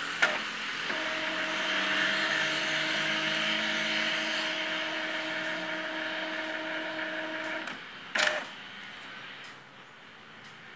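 Epson L3210 ink tank printer running its head cleaning cycle: a steady motor hum and whine runs for about seven seconds, then stops. A sharp clack comes about a second later.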